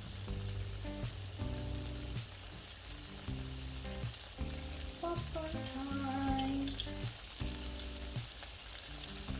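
Flour-coated chicken pieces deep-frying in hot oil, a steady bubbling sizzle, with background music playing over it.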